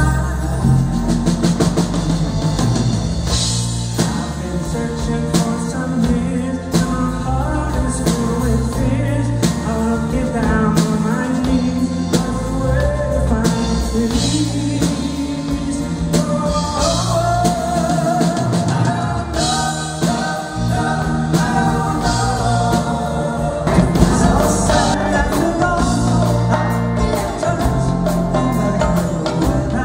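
Live band playing a song with a sung lead vocal over acoustic and electric guitars, bass guitar, drums and keyboards.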